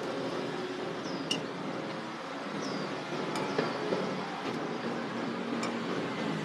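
Steady background hum of a busy stall, with a few light clicks and clinks as a scraper cuts dough against a steel work table.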